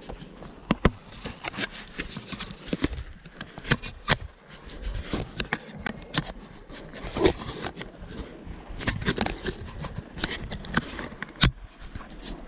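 Handling noise from a handheld camera: irregular knocks, rubs and scrapes of a gloved hand and clothing against the microphone.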